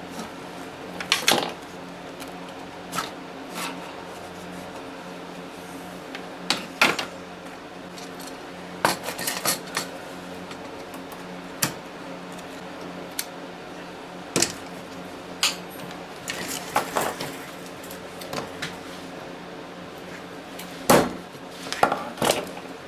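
Irregular sharp clicks and clacks of a truck door handle and its lock mechanism being handled and pried at to free a clip, over the steady hum of space heaters.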